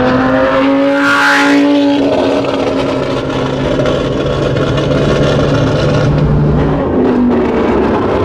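Straight-piped 5.2-litre V10 of a Lamborghini Gallardo Super Trofeo Stradale running loud under way. Its note rises slightly for about two seconds, then settles to a lower, steady pitch.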